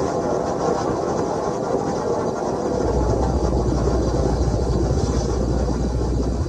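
Recorded roar of an erupting Icelandic volcano: a dense, continuous rumbling noise. About three seconds in, a deep steady low rumble joins and it grows a little louder.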